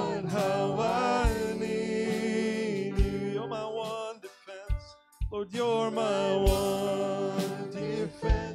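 Live church worship band playing a slow song: singers holding long notes over keyboard, acoustic guitar and soft drum beats, with a brief quieter lull about halfway through.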